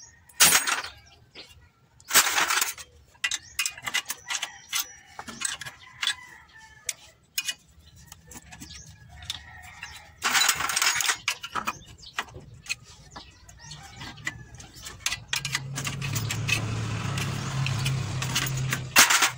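Metal clicks, knocks and rattling as a clutch pressure plate is worked loose from the flywheel by hand, with louder clattering bursts about two seconds in and about ten seconds in. For the last few seconds a low steady hum runs underneath.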